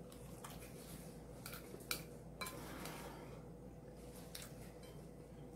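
Faint, scattered clicks of a fork against a plate while eating, about five light taps spread over a few seconds, over a faint steady hum.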